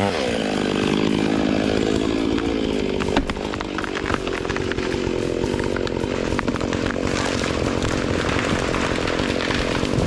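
Two-stroke chainsaw running steadily at a high buzz, with one sharp click about three seconds in.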